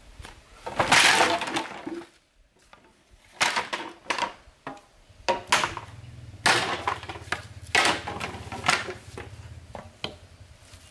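A bundle of bamboo poles set down onto a pile with a long clatter about a second in, then a series of separate hollow knocks as the poles are shifted and laid out one against another.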